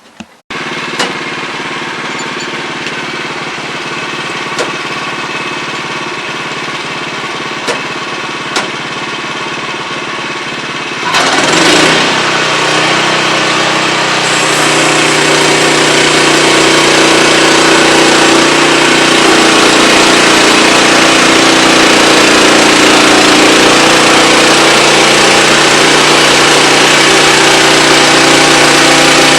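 Wood-Mizer LX25 portable band sawmill running steadily, with a few sharp clicks in the first ten seconds. About eleven seconds in it grows louder and fuller as it comes under load, typical of the band blade going into the log.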